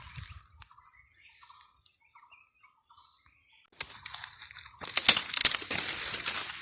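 Dry leaves and brush crackling and crunching, starting suddenly about four seconds in after a quiet stretch, and louder and denser about a second later.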